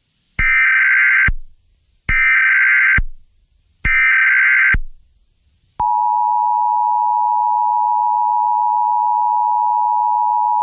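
Emergency Alert System header: three short screeching bursts of SAME digital data tones, each about a second long, then from about six seconds in the steady two-tone EAS attention signal (853 and 960 Hz) held without a break.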